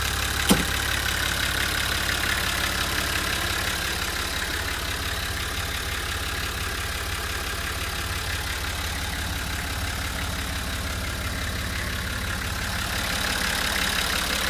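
Isuzu Journey bus's TD42 4.2-litre straight-six diesel idling steadily, heard from inside the cab. One sharp click about half a second in.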